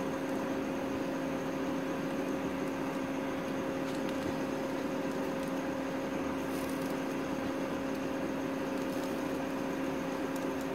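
Steady low hum of a running kitchen appliance: one even tone with its overtone over a faint hiss, with a few faint soft ticks.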